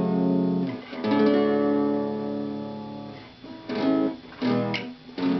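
Acoustic guitar chords strummed and left to ring out: a long ringing chord struck about a second in, then a few quicker strums near the end.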